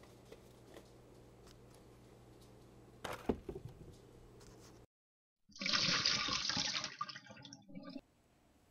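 A brief clatter of small knocks about three seconds in. After a short dead cut, a loud rush of liquid being poured and splashing into a mixing bowl for about two and a half seconds, breaking up and stopping abruptly.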